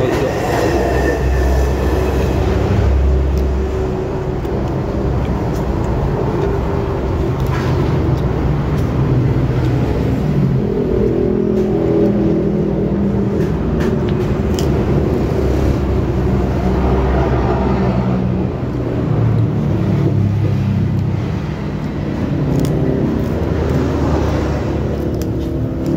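Road traffic of cars and motorbikes: a continuous loud engine rumble that swells and eases a little as vehicles pass.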